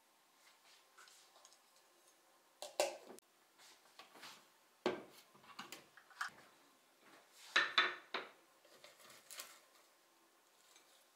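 Kitchen dishes and utensils being handled: a scattering of clinks and knocks, the loudest about three, five and eight seconds in.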